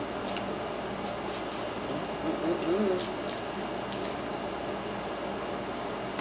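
Close-miked eating of steamed crabs: wet squishing and smacking as meat is picked from the shells, with a few sharp clicks of shell.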